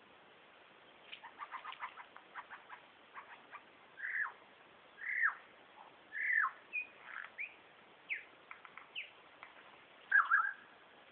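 Superb lyrebird singing mimicked calls. A run of quick clicks comes first, then three whistles that slide steeply down in pitch, then short, scattered notes, and a loud burst of calls near the end.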